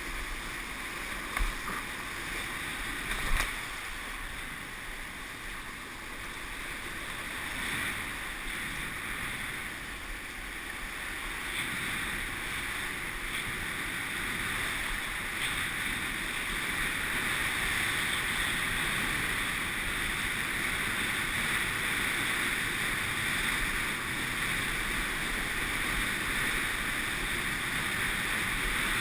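Water skiing heard from a helmet-mounted camera: a steady rush of wind and spray as the skier is towed at speed, with two sharp knocks in the first few seconds while crossing the boat's wake. The rush gradually grows louder through the second half.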